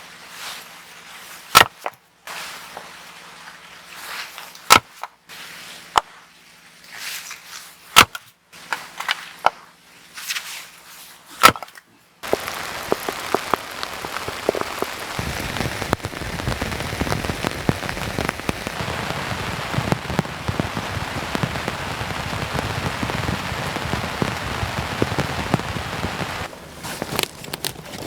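A series of single sharp knocks, irregularly spaced over the first twelve seconds. They are followed by heavy rain: a loud, dense, steady patter of drops starting abruptly about twelve seconds in and easing off just before the end.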